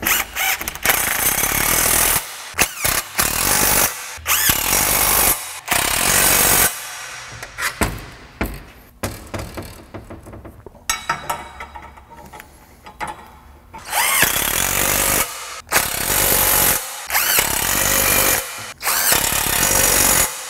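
Cordless impact driver running in the bolts of rear disc-brake caliper mounting brackets on a Ford 8.8 axle tube, in repeated bursts of a second or two with short pauses between them.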